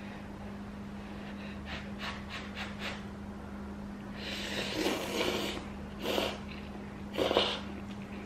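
Noodles being slurped from a bowl of thukpa noodle soup: one long slurp about four seconds in, then two shorter slurps, after a few soft clicks.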